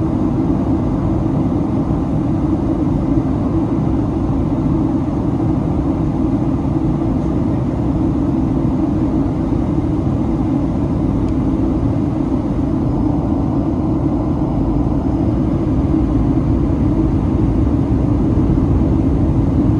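Steady cabin noise aboard a Boeing 737-800: a constant low drone from its CFM56-7B engines and the airflow around the fuselage, growing slightly louder near the end.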